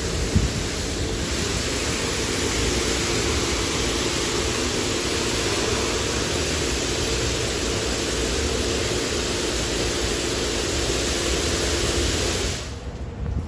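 High-pressure water spray from a Mark VII touch-free car wash gantry, a loud steady hiss with a faint steady hum underneath, cutting off sharply about a second before the end. A brief knock sounds near the start.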